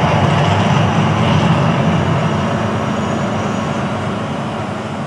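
Deep, noisy rumble of a volcano show's eruption, fading away steadily.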